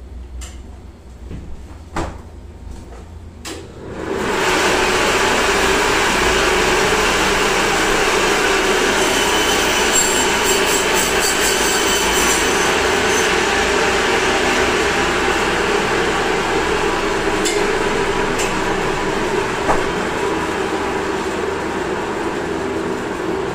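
A few knocks, then about four seconds in a meat band saw starts up and runs steadily as pork is fed through its blade.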